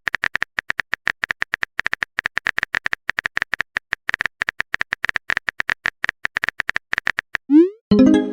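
Rapid smartphone keyboard tap clicks as a message is typed, several a second. Near the end they give way to a short rising swoosh of a message being sent and then a pitched message-notification chime.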